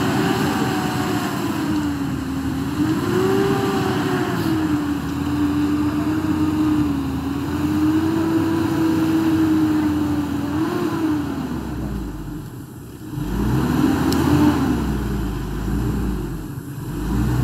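Pickup truck engine revving under heavy load in deep mud, its pitch rising and falling for about eleven seconds. About twelve seconds in it drops off briefly, then comes back as two more surges of revs.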